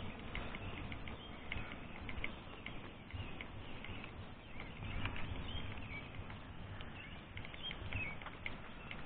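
Many short, high chirps, as of small birds, scattered over a steady low outdoor rumble.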